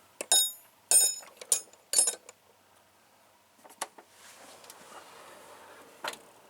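Steel hand tools clinking against each other as they are handled in a toolbox drawer: four bright, ringing metal clinks in the first two seconds, then a few fainter knocks.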